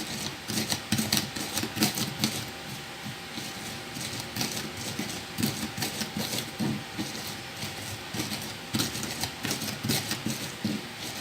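Pestle pounding spice paste of shallots, garlic, coriander and chillies in a small stone mortar (cobek), a quick, uneven run of knocks of stone on stone.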